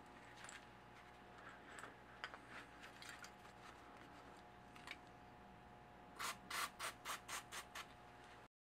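Cloth rag rubbed along a metal bolt in gloved hands: light rustling at first, then about eight quick wiping strokes, around five a second, near the end.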